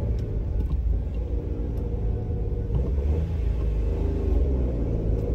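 Car engine running at low speed, a steady low rumble as the car rolls slowly forward.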